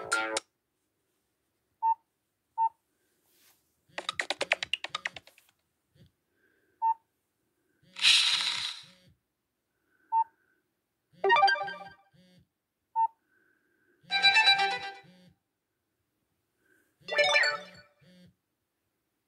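A string of short Android ringtone and notification snippets played through a Nokia phone's small speaker, each about a second long with silent gaps between, and single short beeps in some of the gaps. A low pulse sounds three times under several of the snippets.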